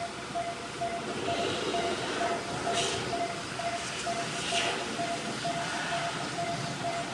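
Railway level-crossing alarm ringing, a single electronic tone pulsing about twice a second, thin and listless-sounding, as a train passes over the crossing with steady rumble and wheel noise.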